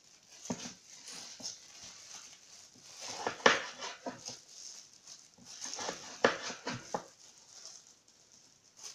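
Kitchen knife slicing peeled raw pumpkin into thin strips on a cutting board: irregular crunching cuts, with the blade knocking on the board. The loudest knocks come about three and a half seconds in and again about six seconds in.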